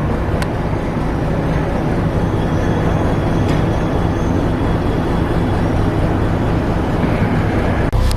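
A heavy engine running steadily with a deep, even drone, with a short click near the end.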